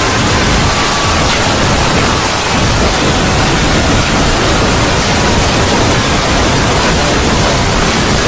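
A 'void' sound effect: a loud, steady rushing noise spread evenly from deep to high pitches, with faint wavering tones near the middle.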